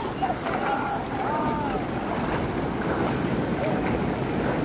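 Small sea waves washing on the beach with steady wind noise on the microphone. Faint distant voices come and go, mostly in the first couple of seconds.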